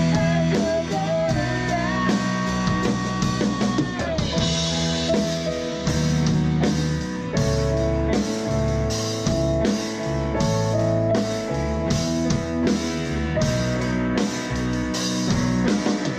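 Instrumental passage of a rock song: guitars over a steady drum-kit beat.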